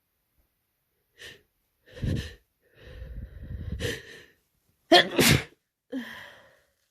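A person with a head cold sneezing. A couple of seconds of uneven, hitching breaths build up, then a loud double sneeze comes about five seconds in, followed by a brief falling sound.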